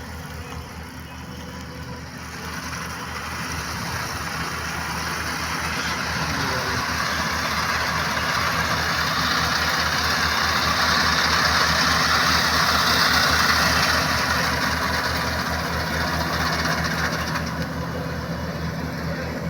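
Combine harvester at work cutting a rice crop: a steady engine hum under the rushing noise of the cutting and threshing. The noise grows louder over several seconds, holds, then eases off again near the end.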